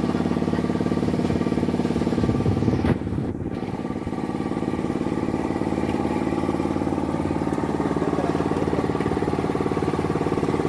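A small engine running steadily at an even speed, with a brief knock about three seconds in.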